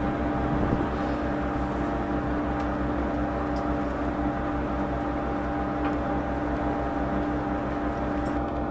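Inboard engine of a Barnes Quintet motor cruiser running steadily under way, a constant drone with an even hum of tones.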